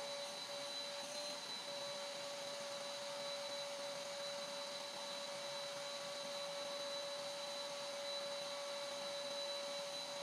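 Vacuum cleaner running steadily through a ribbed hose, a constant motor whine over the even rush of drawn-in air.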